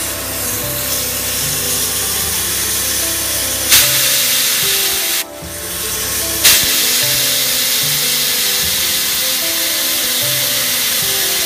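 Abrasive pad pressed against a spinning VW Passat front brake disc, a steady scraping hiss as the disc face is resurfaced. There are two sharp clacks, about 4 and 6.5 seconds in, and the scraping briefly drops away just past 5 seconds. Music plays underneath.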